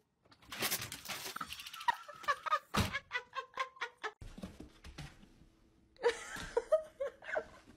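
Glass storm door being handled, rattling and clicking, with a loud thunk about three seconds in.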